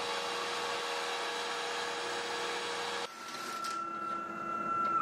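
CNC router spindle running and cutting sheet aluminum for the flap skins, a steady whine over cutting noise that stops abruptly about three seconds in. A fainter steady high whine follows.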